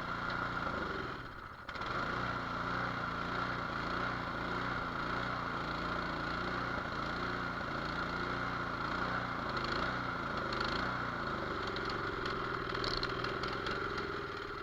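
Cub Cadet two-stage snowblower's 208cc single-cylinder engine running after a choked pull start. Its speed hunts up and down, dipping briefly about a second and a half in before picking back up: surging, which the mechanic takes as the sign of a clogged idle jet.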